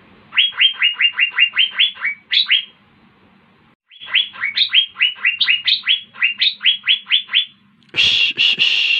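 Asian fairy-bluebird (cucak biru) singing: two runs of rapid, repeated downward-sweeping whistled notes, about five a second, with a short pause between them. Near the end comes a harsh, raspy burst about a second long.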